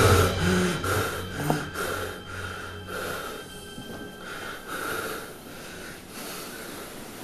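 A young man panting hard after waking with a start: quick, noisy breaths about two a second at first, slowing and getting quieter as he calms down.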